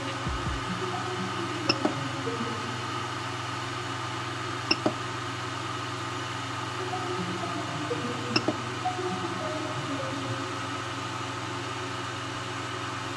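Creality Ender 3D printer's cooling fans humming steadily, with three short high beeps from its control knob being pressed, about two, five and eight seconds in.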